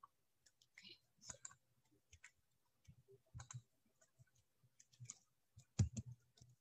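Faint, irregular clicks over quiet room tone, with a louder little cluster about six seconds in.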